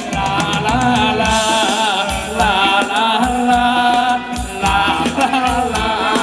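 Live band playing Thai ramwong dance music: a wavering lead melody over a steady drum beat of about two to three beats a second, with high ticking percussion.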